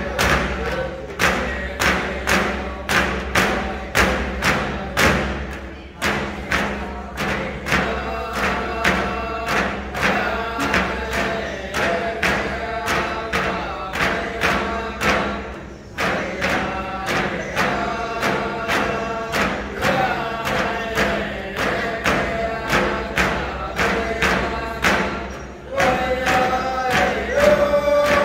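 Eskimo frame drums struck together in a steady beat, two to three strikes a second, with a group of voices singing a dance song over them. The beat breaks off briefly a few times and starts again.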